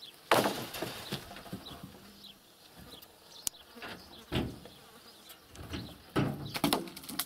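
Birch poles thrown down from a truck bed, landing on a pile with wooden knocks and clatter: a loud one about half a second in, another just past the middle, and a quick run of several near the end.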